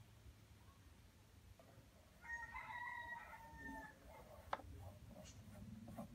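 A rooster crowing once, faint and lasting under two seconds, starting about two seconds in. A little later comes a single sharp click.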